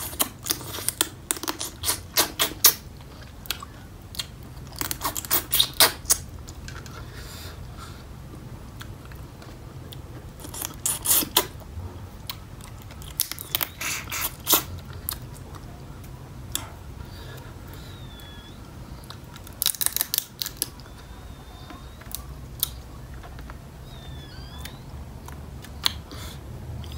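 Close-up eating sounds: sucking and lip-smacking in short clusters every few seconds as blue swimming crab meat is sucked from pieces of shell.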